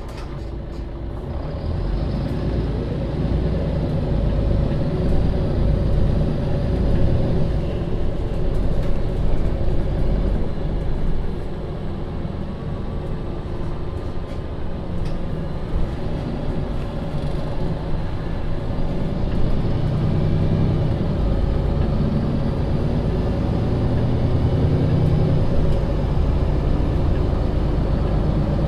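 MAN Lion's City city bus (Euro 6, 2015) heard from inside, its diesel engine and drivetrain pulling: the engine note rises over the first few seconds as the bus speeds up, eases briefly around the middle, then runs on steadily.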